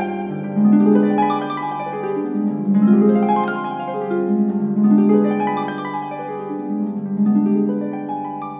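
Solo concert pedal harp playing a flamenco-style piece: waves of plucked notes that climb and fall about every two seconds over held bass notes, dying away near the end.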